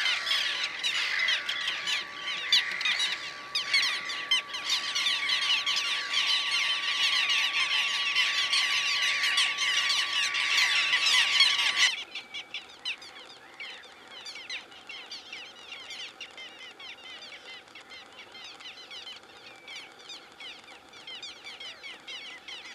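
Gull colony calling: a dense din of overlapping harsh squawks from many black-headed gulls. About halfway through it cuts to a much quieter stretch of scattered, fainter gull calls.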